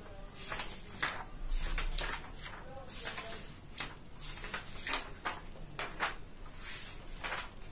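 Sheets of printed paper rustling as pages are flipped and leafed through: a run of short, irregular swishes, with a low thump of handling about a second and a half in.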